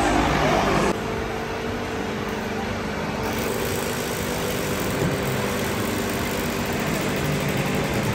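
A steady motor hum with several even tones over continuous background noise. There is a sudden drop in loudness about a second in.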